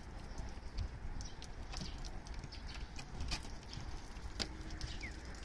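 A bulldog puppy's paws and claws tapping on a wet, ribbed pickup-truck bed liner as it walks about, in scattered, irregular taps.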